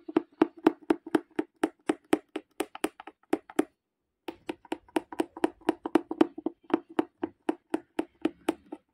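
Punch needle stabbing in and out of fabric stretched tight on an embroidery hoop: a fast, even run of taps, about four or five a second, with a brief pause a little before the middle.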